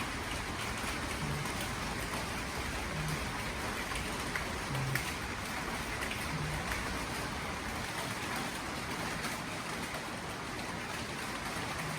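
Steady heavy rain, an even hiss of falling water.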